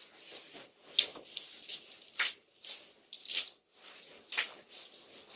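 Liquid splashed from a container onto a porch: irregular soft swishes and splashes about once a second, with a sharp click about a second in, through a doorbell camera's thin microphone.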